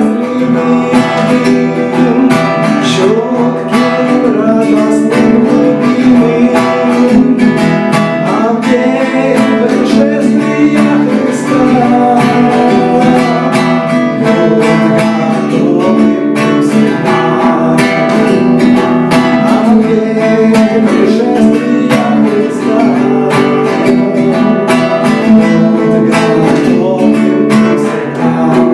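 A song with strummed acoustic guitar and singing.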